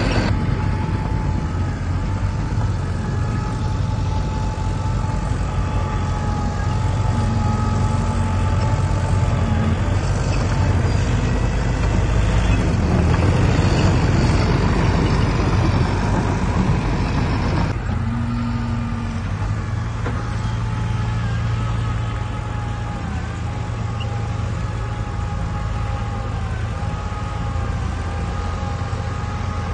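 Heavy diesel earthmoving machinery running under load: a steady deep engine rumble with a thin wavering whine over it. The sound changes abruptly about 18 seconds in, the high hiss dropping away.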